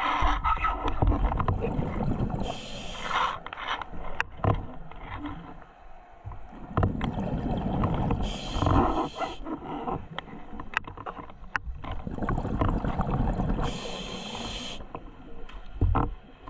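Scuba diver breathing through a regulator underwater: three slow breath cycles about five to six seconds apart, each a rumbling burble of exhaled bubbles followed by a short hiss of inhaled air, with a few light knocks in between.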